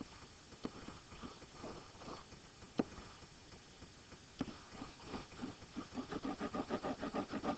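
A stylus tapping and scribbling on a touch drawing surface: a few single taps, then from about five seconds in a quick back-and-forth scrubbing, about six strokes a second, as a small square is hatched in.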